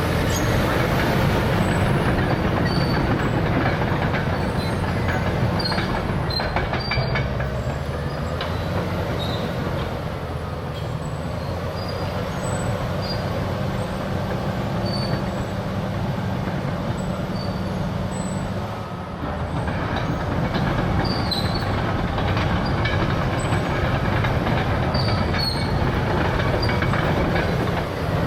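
Caterpillar D6R crawler dozer with a C9 diesel running under load, its steel tracks clanking, with short high squeaks scattered throughout. The sound eases briefly about two-thirds of the way through.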